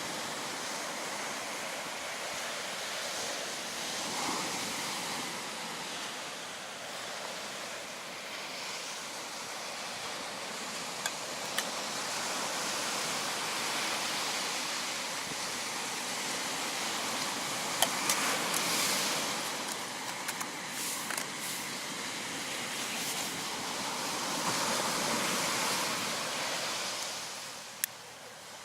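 Sea waves washing onto the shore, a steady rush that swells and eases several times, with a few sharp clicks.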